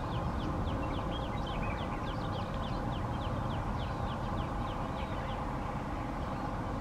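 Distant diesel locomotive running with a steady drone as it approaches. A bird calls over it in quick, repeated high falling chirps that stop about five seconds in.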